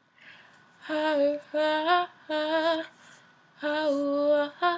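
A single unaccompanied voice singing wordless held notes, a cappella, several in a row with wavering vibrato and short gaps between them, after a quick breath at the start.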